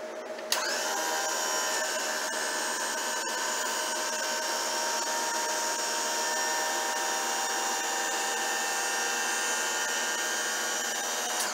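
Commercial wheelchair lift's electric hydraulic pump motor running under load as the platform rises: a steady whine with several tones that starts suddenly about half a second in and cuts off near the end.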